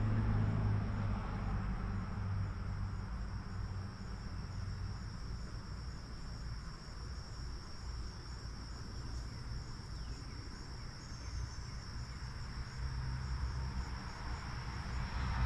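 Insects chirring steadily in one high, even pitch, over a low rumble.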